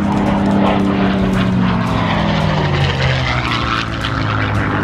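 Supermarine Spitfire Mk IX's Rolls-Royce Merlin V12 engine and propeller in a low display pass. The engine drone drops in pitch from about two seconds in as the plane passes and pulls away.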